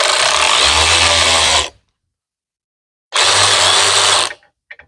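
Handheld power tool running in two bursts: the first is already going and stops after under two seconds, the second starts about three seconds in and lasts about a second. A couple of faint clicks follow near the end.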